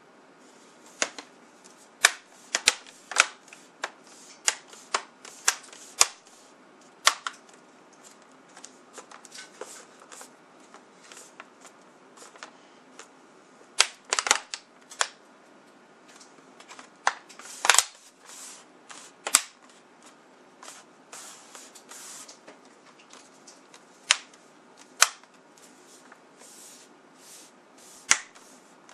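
Plastic screen bezel of an HP G71 laptop being pressed back onto the lid, its clips snapping into place: a long string of sharp, irregular plastic clicks, some much louder than others.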